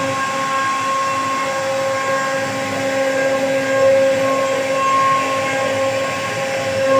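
CNC router spindle running with a steady whine while carving wood, over a constant hiss from the cut.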